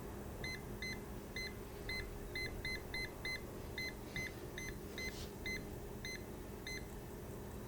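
Aftermarket parking sensor kit's warning buzzer giving short, high beeps, about two to three a second at uneven spacing, as the connected sensor detects an object. The beeps stop near the end, and a steady low hum runs underneath.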